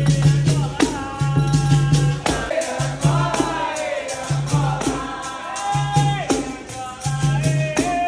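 Capoeira roda music: berimbaus struck in a steady rhythm with caxixi rattles, alongside pandeiros and an atabaque drum, under singing voices.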